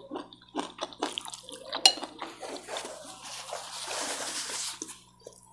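Close-miked eating: wet chewing and slurping of fried noodles, with a sharp clink of cutlery on the plate about two seconds in, then a few seconds of soft hissing noise.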